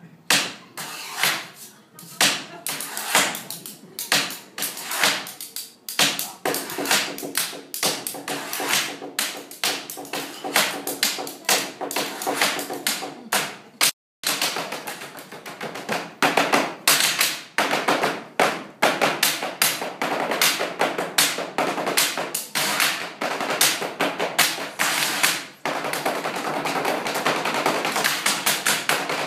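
Live tabletop percussion: performers strike the table and objects on it in rhythmic patterns of taps and thumps. The hits become dense and near-continuous over the last few seconds.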